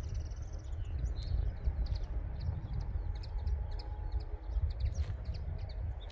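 Outdoor ambience: a steady, uneven low rumble of wind on the microphone, with small birds chirping on and off.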